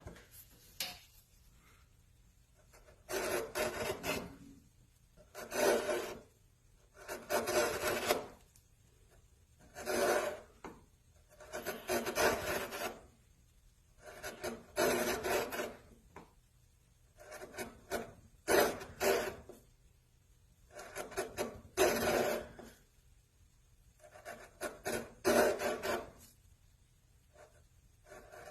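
A hand tool rasping and scraping across wood in repeated strokes, each about a second long, with short pauses between them.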